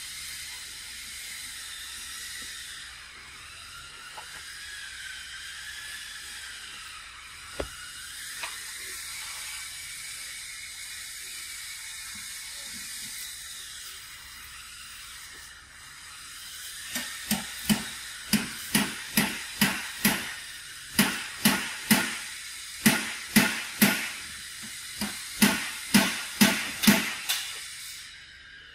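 Steady high-pitched hiss of outdoor ambience, with faint wavering squeaks in the first half. About 17 seconds in, a loud pulsing sound begins, about two pulses a second, and stops near the end.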